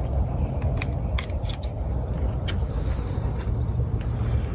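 Unsteady low rumble on the microphone, with scattered light clicks and rustles of someone moving through dry grass on a bank.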